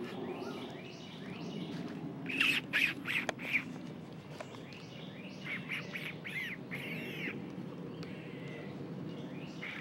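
Short, high-pitched squeaky calls from a small animal, in a quick cluster about two seconds in and again a few seconds later, over steady background noise.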